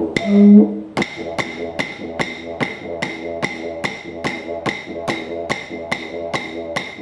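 Didgeridoo drone with clapsticks struck in a steady beat, about two and a half strikes a second. A loud held hoot sounds over the drone about half a second in, just before the beat picks up.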